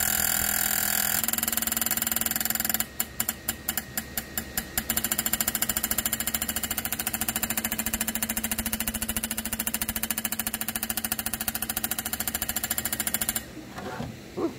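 Evinrude E-TEC outboard fuel injector firing on an injector test bench: a loud, rapid mechanical clatter of pops. About three seconds in it slows to separate pops several a second for a couple of seconds, then speeds back up, and it stops near the end. The loud pop is the sign of the injector producing pressure properly.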